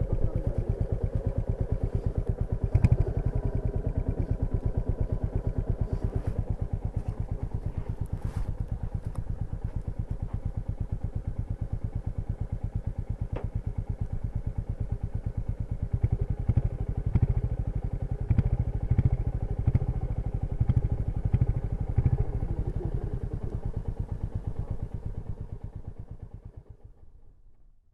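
Royal Enfield Meteor 350's single-cylinder engine running at a steady, low-speed thump with evenly spaced exhaust beats. A few louder beats come about two-thirds of the way through, and the sound fades away near the end.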